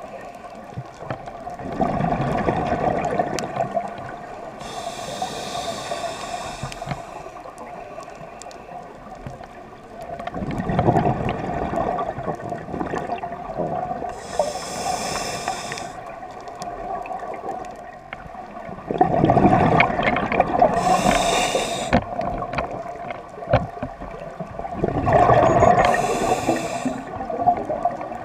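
Scuba diver breathing through a regulator: a hiss on each inhalation and a gurgling rush of exhaled bubbles, about four breaths several seconds apart.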